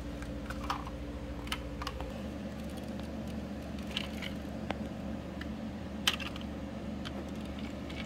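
Small toy vehicles being handled and moved on a wooden surface: scattered light clicks and taps, a few seconds apart, over a low steady hum.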